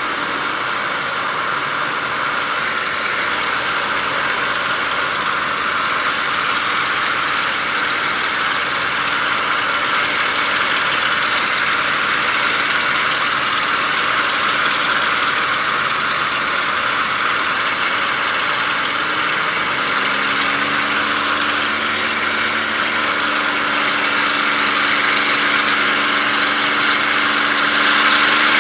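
P-51D Mustang's Packard Merlin V-12 engine running steadily in flight, heard from inside the cockpit together with the rush of air over the canopy. About twenty seconds in, a steadier, deeper engine tone comes in and holds.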